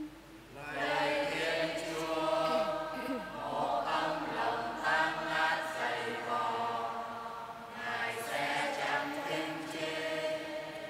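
Choir singing softly, several voices together, in the pause between verses of a sung responsorial psalm.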